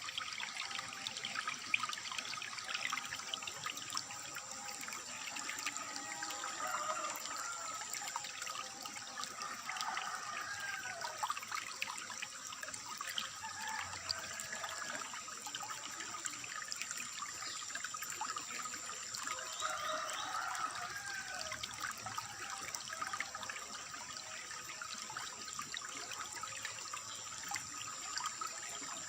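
Water trickling and gurgling steadily, with small bubbling sounds and a thin, steady high-pitched tone over it.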